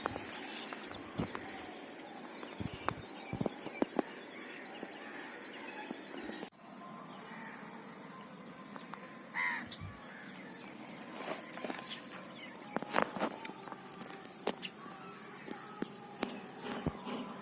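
Outdoor ambience of insects chirping steadily in rapid even pulses, with scattered light clicks and rustles. A single brief bird call comes about nine and a half seconds in.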